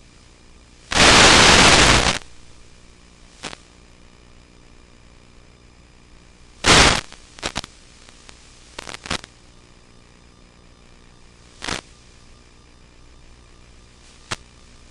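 Radio static from an analog FPV video link, harsh hiss in sudden bursts over a faint steady hiss. A loud burst lasts about a second near the start, another short loud one comes nearly seven seconds in, and several brief crackles fall between and after.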